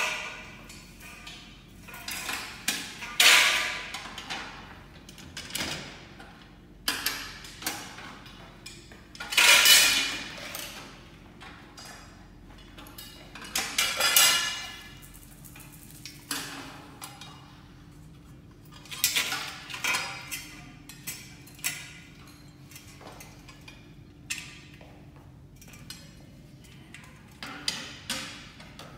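Metal clinking and clanking as aluminum shelf parts and a wrench knock together during assembly: irregular knocks, with four louder strikes several seconds apart that ring briefly.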